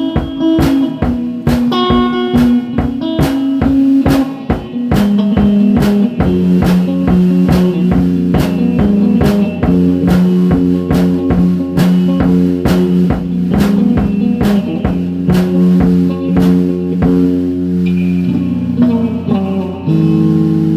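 Background rock music with guitar and a steady drum beat; the drums drop out near the end while the guitar carries on.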